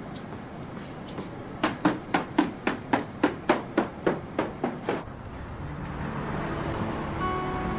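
A quick, even run of sharp hard taps, about four a second, growing louder and then fading away. Quiet guitar music comes in near the end.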